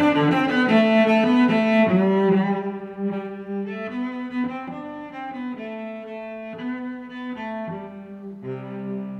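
Background music of slow, held notes, louder for the first two and a half seconds, then softer.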